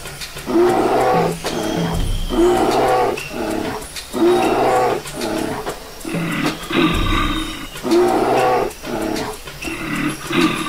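Bear roar sound effect: a string of loud growling roars, each under a second, repeating one after another.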